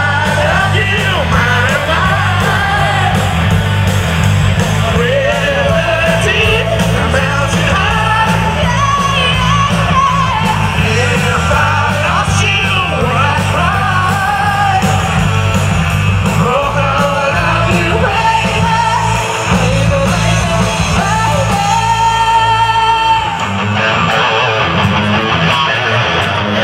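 Live rock band playing amplified through a PA: a female lead vocalist singing over electric guitar, bass guitar and drums. A few seconds before the end the deep bass and drums drop out, leaving guitar and voice.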